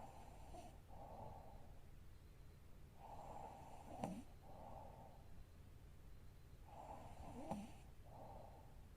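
A sleeping woman's faint, slow, heavy breathing with light snoring: three breaths, about one every three and a half seconds, each a pair of breathy hisses. Twice, about four seconds in and near the end, the breath catches in her throat with a short snort and click.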